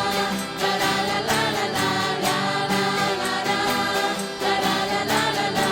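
Christian worship music: a live band playing an instrumental passage with a steady beat between sung choruses.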